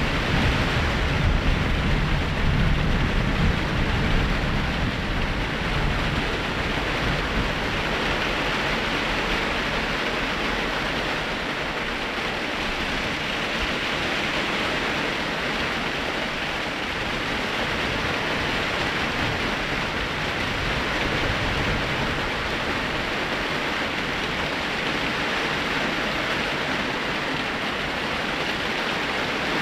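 Steady rain falling hard during a thunderstorm. A low thunder rumble fades out over the first few seconds.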